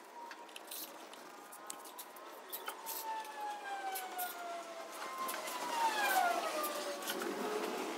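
Long wailing tones in the background, two overlapping, each sliding slowly down in pitch over several seconds and loudest near the end. Under them, light rubbing and clicks of a microfiber cloth wiping the plastic parts of an engine bay.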